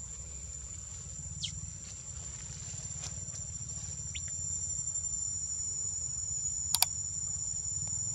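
Insects trilling steadily at a high pitch, over a low rumble. Near the end come a quick pair of mouse-click sound effects and then a single click from a like-and-subscribe button animation.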